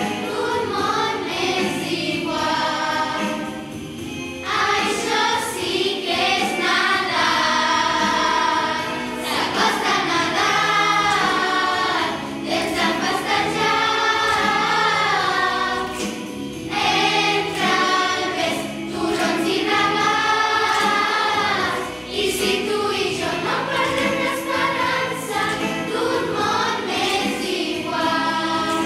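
A choir of schoolgirls singing a Christmas carol together with long held notes, over a musical accompaniment with jingling percussion.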